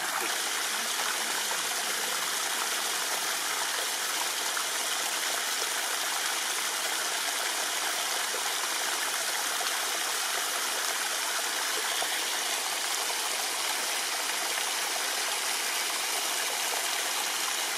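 Stream water flowing steadily, an even rushing sound with no breaks.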